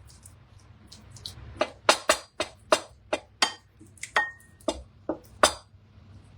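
A spoon clinking against a bowl while stirring to dissolve miso: about a dozen quick knocks, roughly three a second, each ringing briefly.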